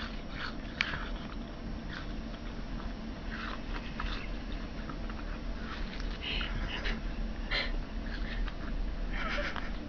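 A cat chewing a piece of watermelon, with short, irregular eating sounds scattered through, over a steady low hum.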